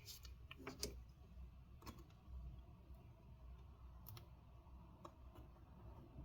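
Near silence with about five faint, scattered clicks of small handling noise, from adhesive pull-tab strips being slowly stretched out of a laptop case.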